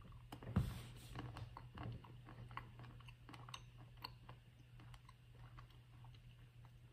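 Faint chewing of a cashew nut: small crunching clicks, frequent at first and thinning out over the last few seconds, over a low steady hum.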